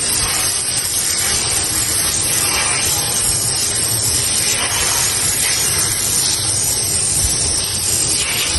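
Running water pouring steadily over an air conditioner's filter as it is rinsed clean.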